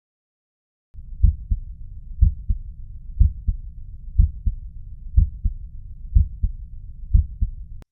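Recorded heart sounds: paired lub-dub beats about once a second over a steady low rushing noise. They start about a second in and stop abruptly near the end.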